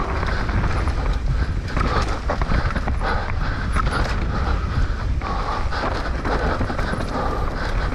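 Mountain bike ridden fast down a rough dirt trail: constant rattling and knocking of the bike over the ground over a steady rumble of wind on the microphone.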